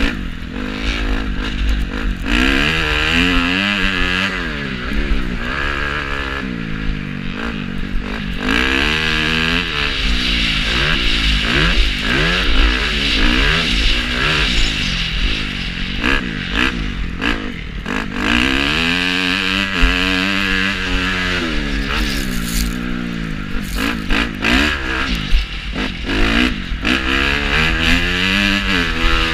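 Honda motocross bike's engine heard from on the bike, the throttle opened and closed again and again so the pitch keeps climbing and dropping through the gears and corners. Scattered knocks and rattles come through as the bike hits bumps.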